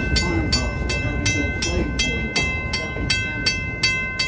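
Railroad crossing bell ringing steadily, about three strokes a second, over the low rumble of open passenger cars rolling past on the track. The rumble drops away as the last car clears the crossing.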